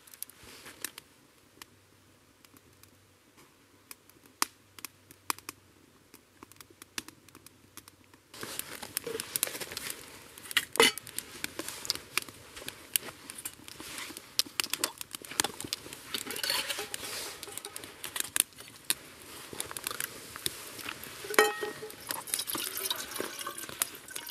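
Small twig fire of birch bark and kindling crackling in a Bushbox XL titanium wood-burning stove: only scattered faint pops at first, then a dense, irregular crackle from about eight seconds in.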